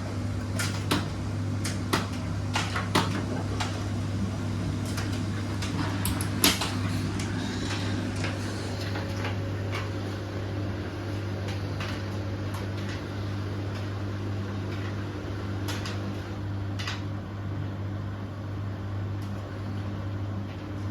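Beko washing machine running, with a steady low hum throughout and a string of sharp clicks and knocks over the first seven seconds or so, then only a few more.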